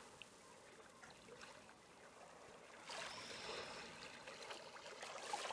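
Faint trickling, flowing water, growing a little louder about halfway through.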